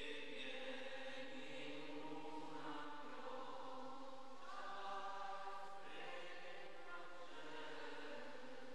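Congregation singing a slow hymn together after the Mass's dismissal, in long held notes that change pitch every second or two.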